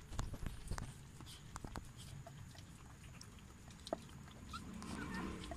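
Newborn puppies nursing against their mother while she licks one of them: faint wet clicks and smacks with light shuffling on a plastic slatted floor, and a couple of faint short squeaks near the end.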